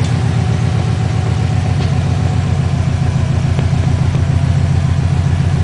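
2004 Subaru WRX's turbocharged flat-four engine idling steadily with an even, pulsing beat. The car's computer reports misfires on all cylinders.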